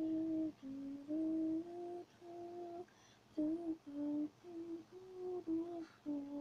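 A girl humming a slow tune: a string of about a dozen short held notes stepping up and down, with a brief pause about three seconds in.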